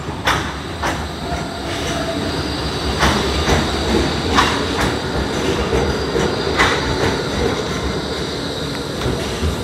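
E2-class low-floor tram pulling into a stop close by: a steady rolling rumble with a thin high whine, and several sharp wheel clacks during the first seven seconds or so.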